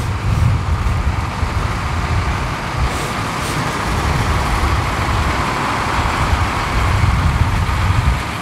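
Steady road traffic noise from slow-moving buses, trucks and cars, with a heavy low engine drone.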